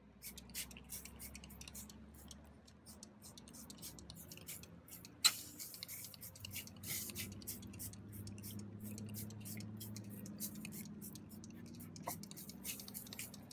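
A hand trigger spray bottle of degreaser squirting again and again: short, quick hisses and clicks, several a second, with one sharper click about five seconds in and a faint low hum underneath.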